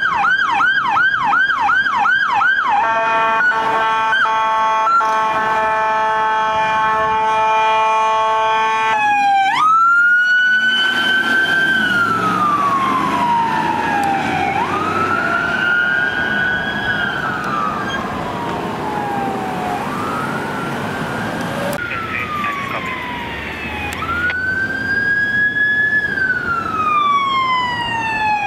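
Electronic emergency sirens on U.S. Forest Service law enforcement vehicles (Chevy Silverado and Tahoe) responding code 3. There is a fast warbling yelp for the first few seconds, then a steady blaring horn tone for about six seconds, then a slow wail that rises and falls for the rest.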